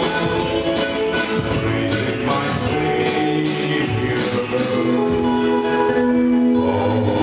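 Live hymn with a man singing through a microphone over accordion, keyboard and electric guitar, with a steady jingling percussion beat that drops out about five seconds in, leaving held chords.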